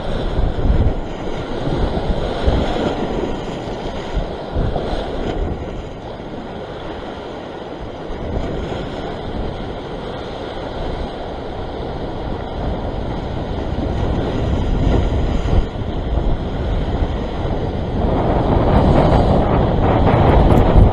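Sea surf washing over rock ledges, with wind buffeting the microphone. The wash swells louder near the end as a wave surges and breaks close below.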